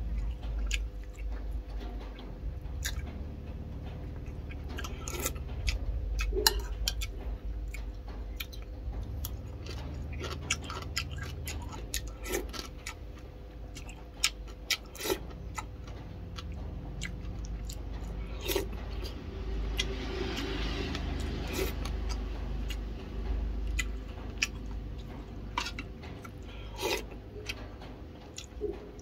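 Chewing of boiled chicken and rice, with a metal spoon clinking and scraping against a ceramic bowl many times, over the steady hum of a small electric fan.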